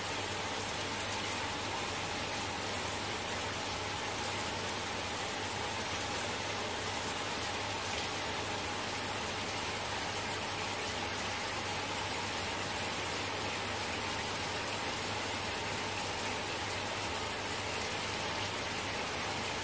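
Steady, even rain-like hiss with no breaks or distinct events.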